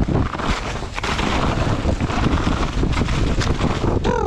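Wind buffeting a helmet camera's microphone, with tyres and bike rattling over the trail on a mountain-bike descent.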